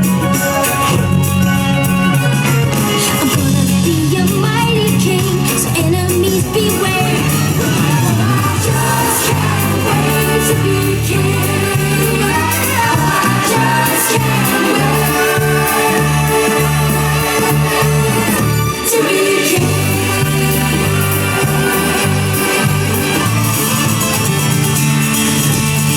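Music with singing over a steady, repeating bass line, at an even, loud level.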